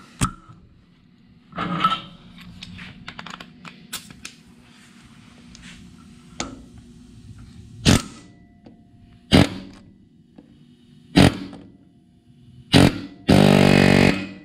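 Pneumatic air hammer with a punch bit hammering steel on steel against the cross pin of a GM 12-bolt differential, fired in four short bursts and then one longer buzzing burst of about a second near the end. The mechanic takes the sound for the punch hitting on the pinion gear.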